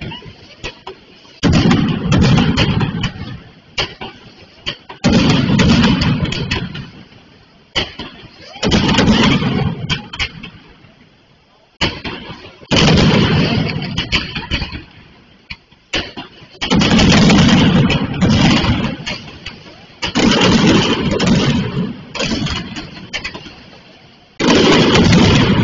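Mascletà fireworks by Pirotècnia Camp del Túria going off: a string of sudden volleys of rapid firecracker bangs, each starting abruptly and trailing off over a second or two, repeating every few seconds.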